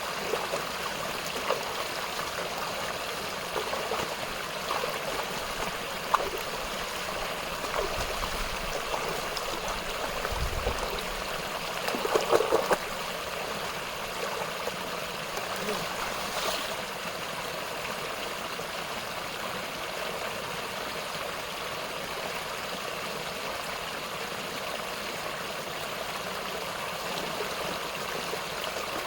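Stream running over rocks: a steady rush of flowing water. A few brief knocks stand out, the loudest cluster about twelve seconds in.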